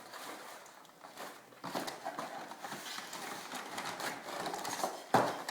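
Toy box packaging scraping and rustling as the inner tray is slid out of the box, with a sharp knock just after five seconds.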